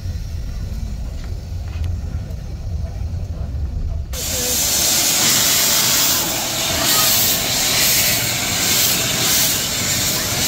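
A low rumble, then about four seconds in a sudden switch to a loud, steady hiss of steam escaping from a standing 15-inch gauge miniature steam locomotive, steam drifting from around its cylinders.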